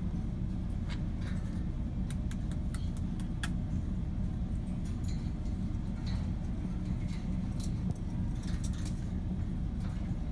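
Steady low machine hum, with scattered faint clicks and ticks over it.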